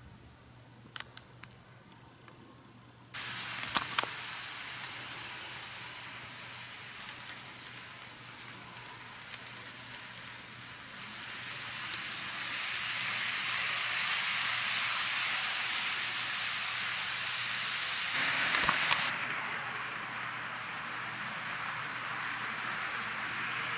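N-gauge model trains, a Kato 283 series and a Tomix KiHa 81/82 set, running on sectional track: a steady hiss of wheels and motors on the rails with a low hum. There are a few sharp clicks in the first four seconds. The sound gets louder from about halfway, then drops suddenly near the end.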